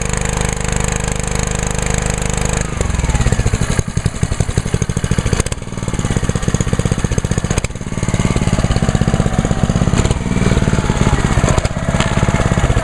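Ryobi gas pressure washer's Honda GCV190 engine running fast and steady, then its speed slides down about three seconds in. It carries on at a slower, pulsing speed that swells and eases in loudness. The drop is the idle-down feature lowering the engine's revs when the spray trigger is not held.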